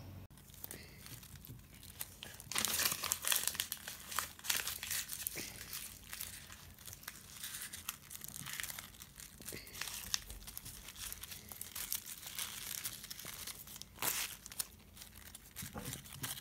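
Crumpled newspaper crinkling and rustling as it is pressed by hand onto a cardstock cutout, with strips of masking tape torn and stuck over it. The crackling comes in irregular bursts, loudest about three seconds in and again towards the end.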